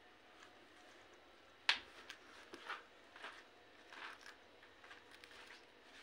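Rose-ringed parakeet nibbling with its beak: a sharp click a little under two seconds in, then a scatter of soft crunching clicks.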